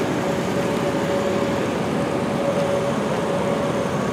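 Many small garden tractor engines running together in a steady mechanical drone, with one steady whining tone over it.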